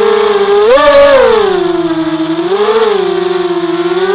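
RCTimer 2300 kV brushless motors spinning 5x3 carbon-fibre propellers on a 250-size FPV quadcopter, whining in flight as heard from its onboard camera. The pitch climbs sharply about a second in as the throttle is pushed, sinks lower, rises briefly again near three seconds, then settles back to a steady hover tone.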